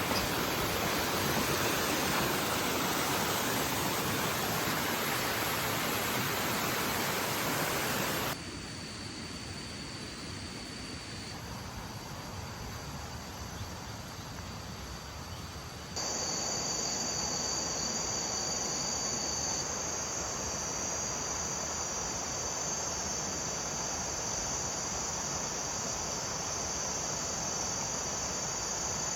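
Waterfall rushing as a steady broad hiss for about the first eight seconds; after two abrupt cuts, forest insects keep up a steady high-pitched drone over a softer bed of running water.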